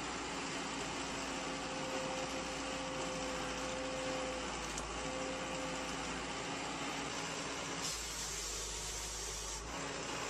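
A steady mechanical drone like a running engine, with a held humming tone; the sound changes abruptly about eight seconds in.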